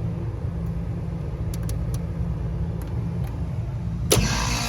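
Steady low mechanical rumble with a few faint clicks. About four seconds in comes a sharp click, then a louder hum with steady tones sets in: the Lennox HVAC unit starting back up after its smoke-detector alarm is reset.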